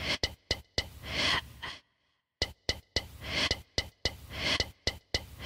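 Beatboxing track: sharp mouth clicks and snares set against long, breathy inhaling swells, in a rhythmic pattern that repeats after a brief break about two seconds in.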